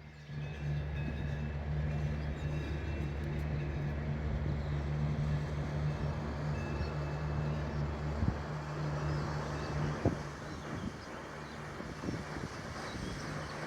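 Cable car in motion: a steady low hum that fades after about eight seconds, two clunks around then, and a rushing noise that grows toward the end.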